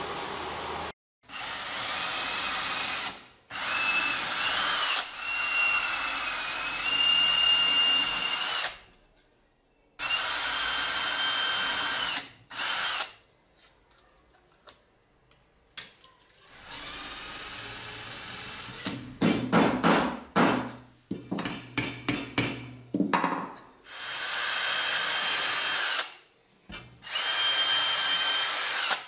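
Cordless drill running in a series of runs of a few seconds each, its motor whine shifting in pitch, as it spins a small wooden part and drives screws into thin wooden pieces. A cluster of short, sharp bursts comes about twenty seconds in.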